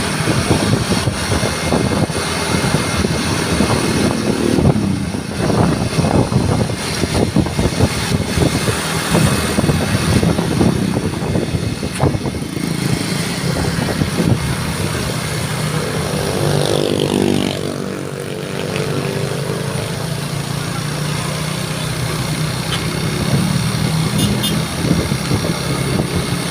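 Road traffic: motor vehicle and motorcycle engines running and passing continuously. A brief pitched tone with a few bending notes sounds about two-thirds of the way through.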